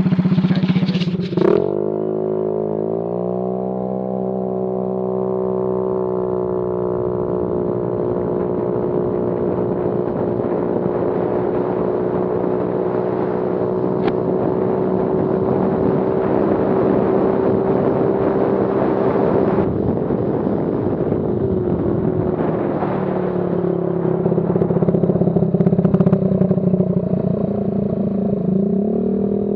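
Scooter's 139QMB (GY6-type) single-cylinder engine running loud and raspy through a muffler gutted of everything but the empty can. Its note rises a couple of seconds in and holds steady for a long stretch, then drops and wavers over the last third.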